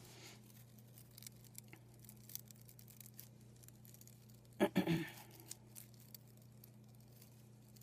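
Faint rustling and small crinkles of red copy paper being worked by hand around a floral stem, over a low steady hum. A brief vocal sound about five seconds in.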